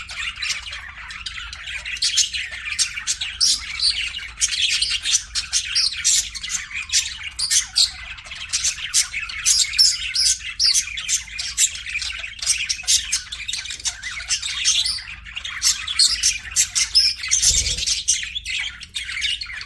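Budgerigars chattering: a dense, continuous stream of high chirps, warbles and short squawks from several birds at once, with a brief low thump near the end.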